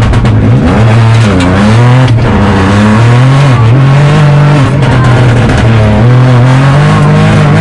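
Opel Corsa Rally4's turbocharged three-cylinder engine, heard loud inside the cabin, pulling hard in the low gears. The revs climb and drop back again several times as the car accelerates out of a slow section.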